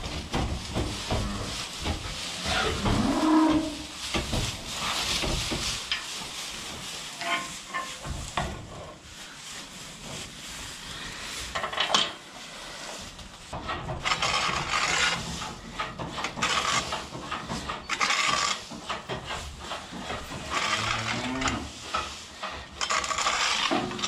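Young beef bulls being driven through a barn: irregular shuffling, knocks and rustling, with a short low animal call about three seconds in.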